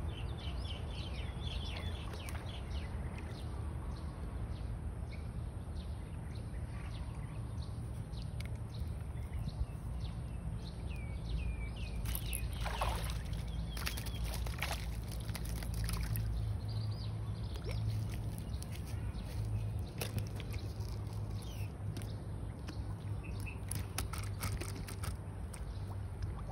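Small birds chirping over a steady low rumble, with splashing from a hooked fish thrashing at the pond surface about halfway through, and a run of sharp clicks near the end.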